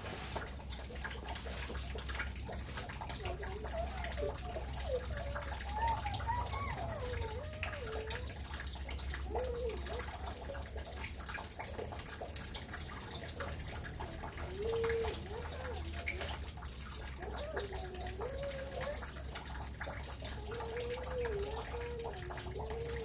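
A faint human voice wavering up and down in pitch, heard in short stretches over a steady background hiss, with light clicks and rustles throughout.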